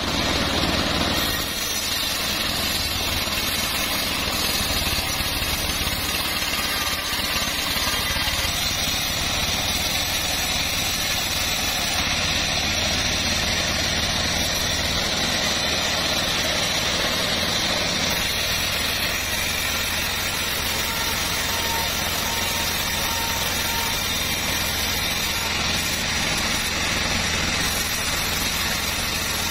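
Home-built bandsaw sawmill running steadily, its blade ripping a plank lengthwise into slats, over the even drone of the machine's drive.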